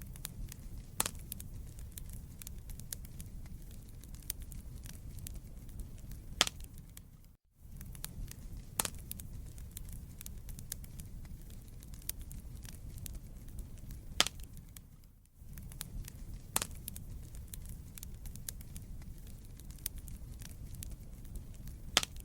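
Wood fire burning in a fireplace: a steady low rumble of flames with scattered sharp crackles and pops of burning logs. The sound dips out briefly twice, about eight seconds apart.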